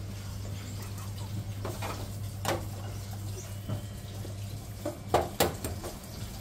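Food-stall kitchen sounds: a steady low hum with occasional sharp clinks and clatters of utensils or dishes, the loudest two close together about five seconds in.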